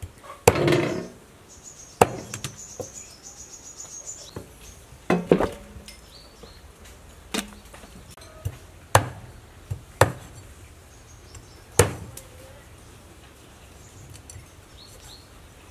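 Cleaver chopping through a whole raw chicken on a wooden cutting board: about eight sharp, irregular chops a second or more apart, stopping about 12 seconds in. A faint high insect buzz runs for a few seconds near the start.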